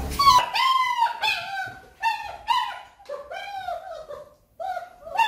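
Young puppies whining: a string of short, high-pitched cries, each rising and falling in pitch, coming about twice a second.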